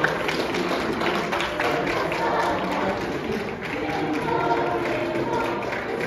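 A group of carolers singing as they walk, with footsteps tapping on a hard tiled floor.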